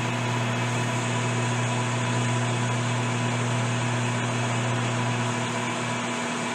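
Metal lathe running at a steady speed with its four-jaw chuck spinning, a steady hum with a clear low tone, while the tool turns a light chamfer on the end of a rifle barrel.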